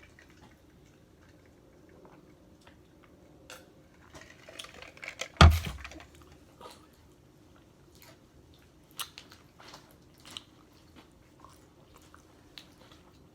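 Close-up chewing and crunching of nacho tortilla chips, with scattered small clicks. One loud thump about five seconds in.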